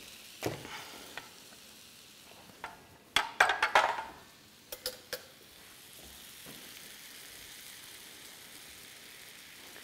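Vegan butter foaming and sizzling with garlic cloves and thyme in a hot wrought-iron pan, a faint steady hiss. A few sharp knocks and clinks of a dish and utensils being handled come about three to five seconds in.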